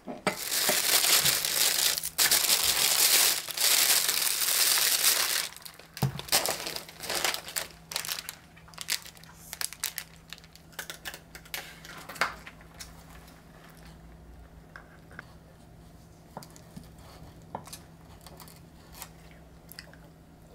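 Clear plastic bag and wrapping rustling and crinkling loudly as a boxed cake and plastic drink cups are unpacked, easing after about six seconds into scattered lighter crinkles and small knocks.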